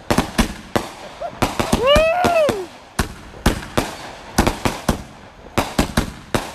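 Black Cat Firedrake firework cake firing: a fast, irregular string of sharp bangs and pops, often two or three close together with short gaps between clusters. About two seconds in, a person's voice lets out a long rising-and-falling 'whoo', the loudest moment.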